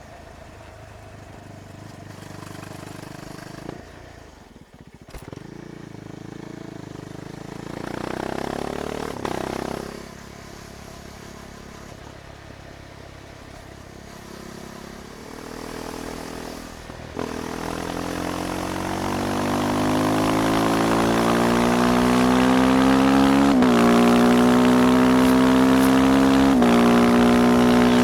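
KTM Duke 390's single-cylinder engine running at low revs with a short rev about eight seconds in, then pulling away and accelerating, its pitch and loudness climbing steadily, with two quick upshift dips near the end.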